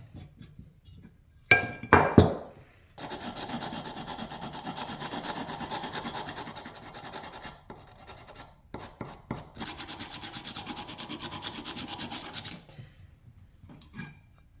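Two sharp metal clanks with a brief ringing about two seconds in, then two long stretches of rapid back-and-forth hand rubbing on a hand plane part during restoration.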